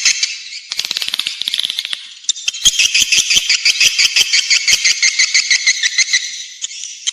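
Swiftlet lure recording of edible-nest swiftlets twittering: a dense, rapid rattle of overlapping high chirps from many birds, with a brief lull about two seconds in.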